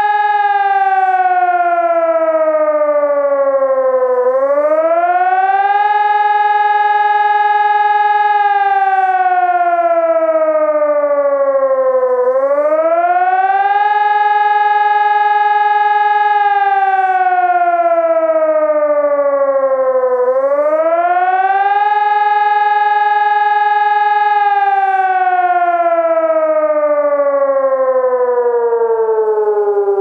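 PPSS 600-C electronic siren sounding the Austrian civil-defence "Alarm" signal. It is a loud wail that rises over about two seconds, holds briefly and then slowly falls, about every eight seconds: three full cycles, ending on a long fall.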